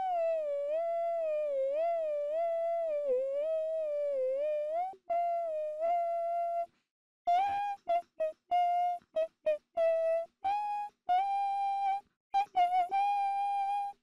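A single high voice humming a wordless melody: one long wavering note for about five seconds, a short pause, then a string of short, separate notes.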